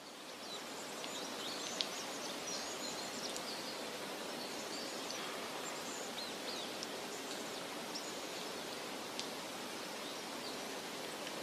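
Forest ambience: a steady rushing background of wind in the trees or running water, with many small birds chirping and twittering, and a few sharp clicks. It fades in over the first second.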